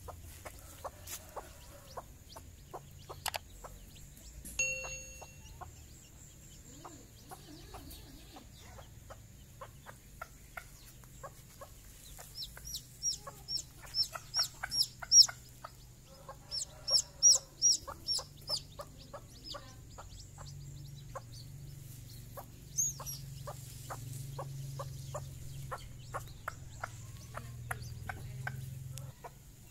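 Mother hen clucking softly and repeatedly to her brood, with the chicks peeping; two runs of quick high peeps in the middle are the loudest part.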